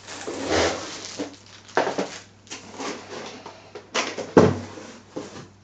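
Unboxing noise: a plastic-wrapped aquarium LED light bar being pulled from its cardboard box and handled, with rustling and a few sharp knocks, the loudest about four seconds in.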